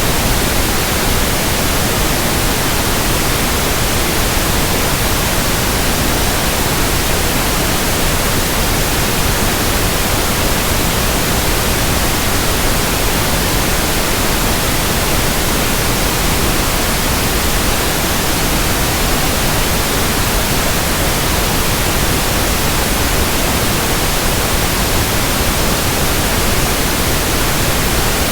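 Generated pink noise: a steady, even hiss across the whole range that does not change.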